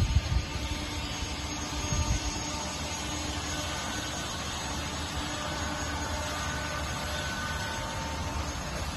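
Steady rushing background noise with a faint hum, and low rumbling gusts in the first two seconds.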